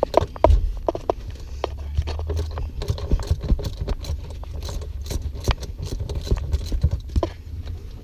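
Irregular clicks and knocks of hand tools and metal parts while a car seat is unbolted, over a steady low rumble.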